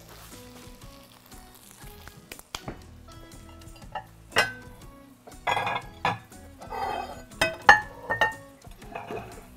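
Pesto fusilli sizzling in a frying pan on the hob, with a few sharp clinks of kitchenware, the loudest about four and a half and eight seconds in, over quiet background music.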